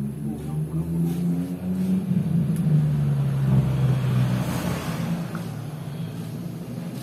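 A low motor hum with a steady pitch, swelling louder through the middle and then easing off.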